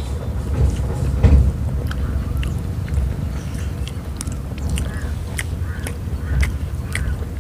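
People chewing and biting into egg kulfi held on sticks, with many short wet mouth clicks and smacks, over a steady low rumble.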